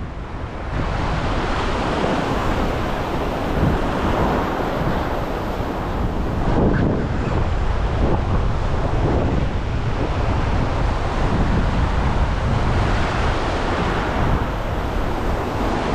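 Ocean surf washing onto the beach, with strong wind buffeting the microphone.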